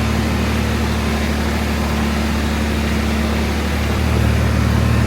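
Small farm vehicle's engine running steadily at a low hum, getting a little louder about four seconds in.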